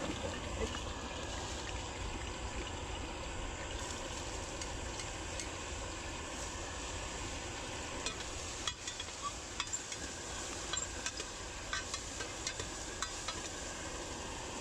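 Cabbage sizzling as it is stir-fried in oil in a pan on a gas camping stove, with a run of light clicks and taps in the second half.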